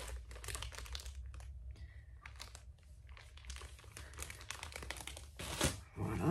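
Clear plastic bag of pixel-art plates crinkling and rustling as it is handled, in irregular short crackles with a quieter stretch about two seconds in and a louder crackle near the end.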